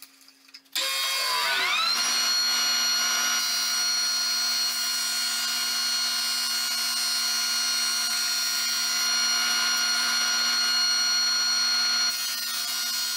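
JET 18-36 drum sander switched on about a second in, its motor spinning up with a rising whine that settles within a second into a steady running hum and whine.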